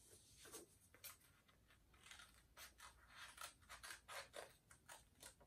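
Small craft scissors snipping through white cardstock: a run of short, faint cuts, closest together in the middle seconds.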